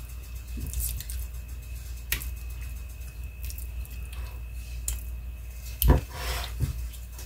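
Thick refried beans being scooped from a bowl with a serving utensil and plopped onto a plate: soft, wet squishing and scraping with a few light clicks of the utensil, and one louder knock about six seconds in.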